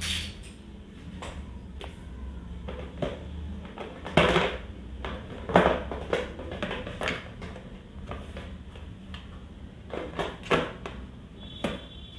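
Makeup palettes and brushes being handled and set into a plastic storage box: scattered clicks and clatters of plastic on plastic, loudest about four seconds in, again near six seconds and twice around ten seconds, over a low steady hum.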